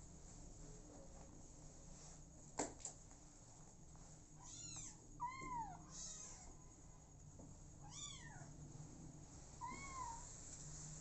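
Young kittens mewing several times in short, high calls that rise and fall in pitch. A single sharp click comes about two and a half seconds in.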